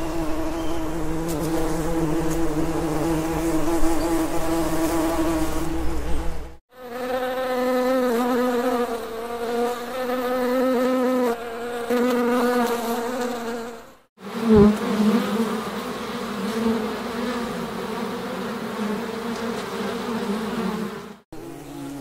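Bee buzzing: several separate recordings of a steady, droning buzz, each cut off by a short silence before the next begins, the pitch differing from one recording to the next. A brief loud swell comes just after the third recording starts.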